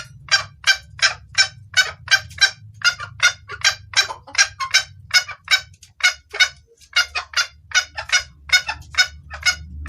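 Junglefowl hen calling in a fast, steady run of short calls, about three a second: the hen's call to cock birds, used as a lure to bring wild males in.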